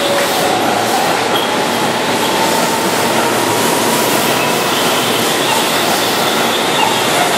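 Keihan Electric Railway train passing close along a station platform: loud, steady running and wheel noise on the rails.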